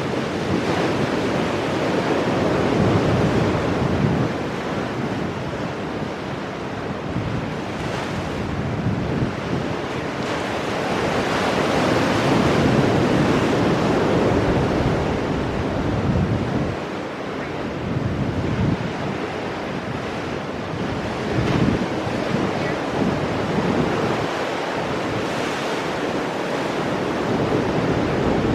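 Ocean waves breaking and washing over rocks, the surf swelling and easing every few seconds, with wind buffeting the microphone.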